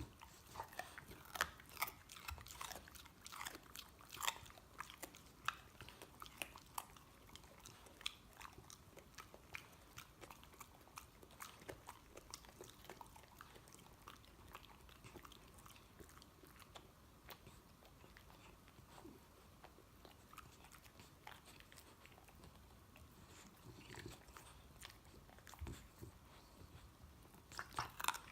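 Bulldog puppy chewing and gnawing, a quiet run of irregular crunches and clicks, thick in the first half, sparser later, with another flurry near the end.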